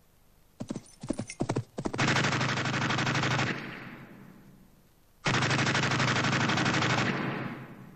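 Light machine gun firing: a few separate shots, then a sustained burst of about a second and a half that dies away in an echo, then a second burst of nearly two seconds near the end that fades the same way.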